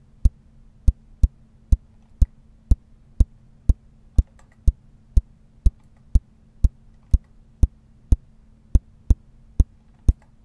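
Short, clicky electronic kick drum hits repeating about twice a second, played through parallel dry and wet buses with the dry bus delayed by about 11 ms to line up with the later wet copy, so the two sound nearly back in phase. A steady low hum runs underneath.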